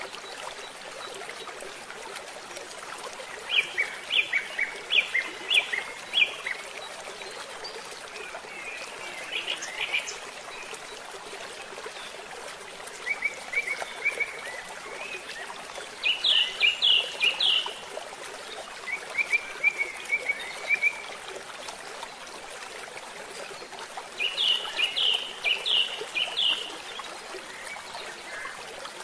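Water pouring out of a culvert pipe into a shallow stream, a steady rushing. Over it a bird calls again and again, in short runs of four or five clear, quick notes every few seconds, and these are the loudest sounds.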